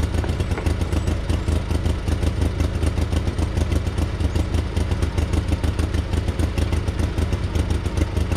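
An engine running steadily with an even, rhythmic pulsing.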